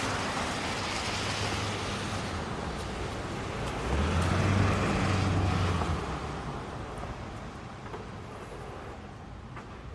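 Road traffic driving through snow slush, with tyres hissing steadily on the wet road. A heavy vehicle's engine rumbles louder from about four to six seconds in as it passes, then the traffic fades a little.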